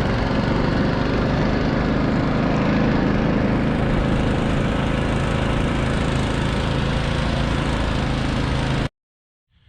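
Small single-cylinder engine of a motor-dog (tracked snow tow unit) running steadily, with a hissing rush over the engine note. It stops abruptly near the end.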